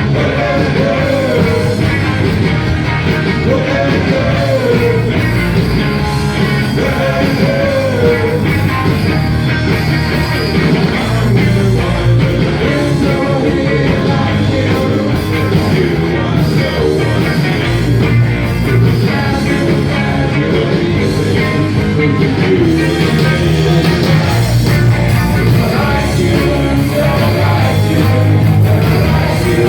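A rock band playing a song with a singing voice over guitar, bass and drums, loud and steady throughout.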